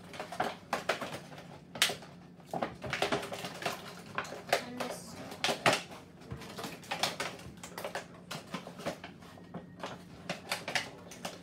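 Hard clear plastic packaging and small plastic toys being handled: irregular clicks, crackles and rustles as items are pulled from a blister tray.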